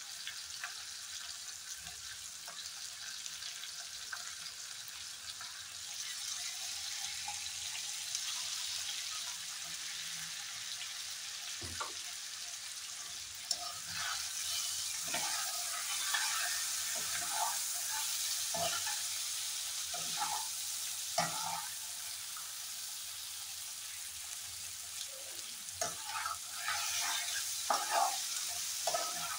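Cauliflower curry sizzling in a frying pan. From about halfway a spatula stirs it, scraping and knocking against the pan in bursts that come thickest near the end.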